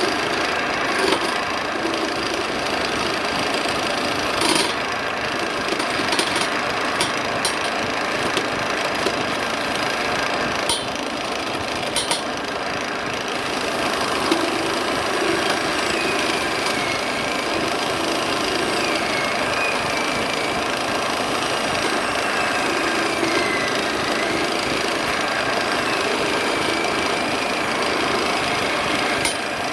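Wood lathe running with a steady mechanical clatter and scattered sharp knocks. A faint wavering high whine comes in about halfway through.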